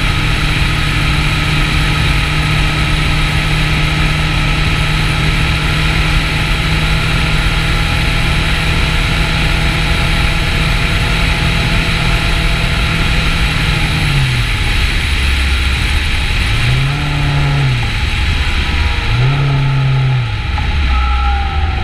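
Kawasaki Ninja 650's parallel-twin engine running at a steady cruise under heavy wind rush. About fourteen seconds in the engine note drops, then twice climbs and falls back, and it settles lower near the end.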